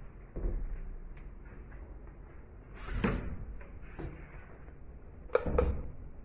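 A wooden interior door being opened by its lever handle: a thud, then the knock and clicks of the handle and latch, ending in a sharp double click, the loudest sound.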